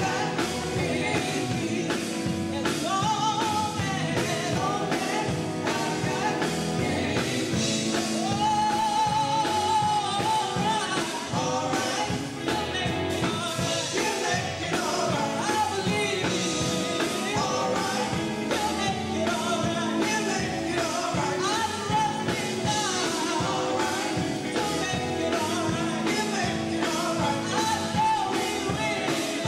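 Live gospel band playing: women's voices singing a lead with backing harmonies over electric guitar, bass guitar and a drum kit.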